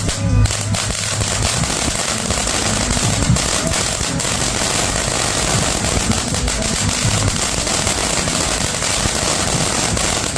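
Golden Rooster three-minute firework fountain burning steadily: a continuous hissing spray of sparks dense with crackling.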